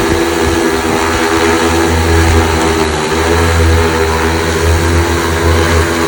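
Large multirotor agricultural spraying drone (Super X 2.0) flying on a test flight, its propellers giving a loud, steady, pitched hum over a low rumble.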